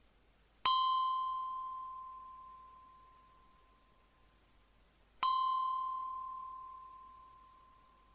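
Ice cream bell struck twice, about four and a half seconds apart. Each single ding rings out on one clear tone and fades away over a few seconds.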